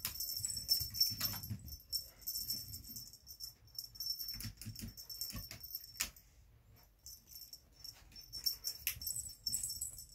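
A kitten pouncing on and wrestling a feather wand toy on a shaggy rug: irregular rustling and soft thumps, with metallic jingling and clicking as the toy and its cord drag through bead strings. There is a brief lull a little past the middle.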